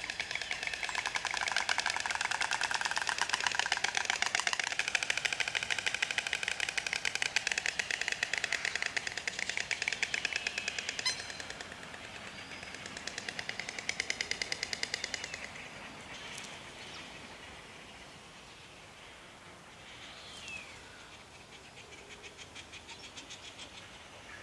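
White storks bill-clattering: a fast, dry, machine-gun-like rattle of several birds at once. It is loud for about the first eleven seconds, breaks off, comes back in one shorter bout, then dies away.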